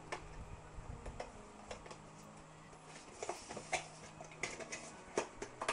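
Irregular light clicks and taps of hands handling a small cardboard box and a clip-on earring's back, growing busier after about three seconds.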